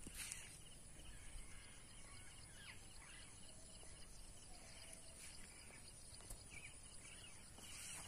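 Near silence: faint open-air ambience with a few distant, short bird calls.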